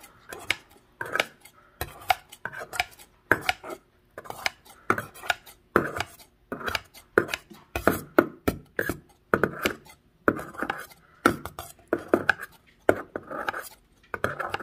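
Knife chopping raw duck tenderloin inside a stainless steel bowl: repeated sharp strikes, about two a second and unevenly spaced, each blade hit ringing briefly off the metal bowl.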